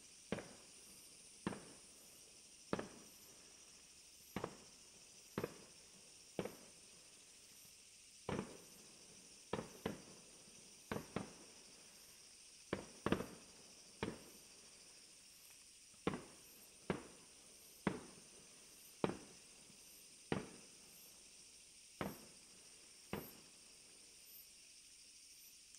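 Fireworks going off: about twenty sharp bangs at irregular intervals of roughly a second, some in quick pairs, each with a short echoing tail. A steady faint high hiss runs underneath.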